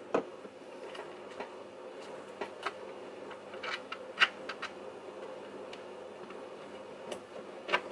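Scattered clicks and knocks of metal tools and skateboard truck parts being set down and handled on a wooden workbench, over a faint steady hum. There is a sharp knock just after the start, the loudest click about four seconds in, and a few more knocks near the end.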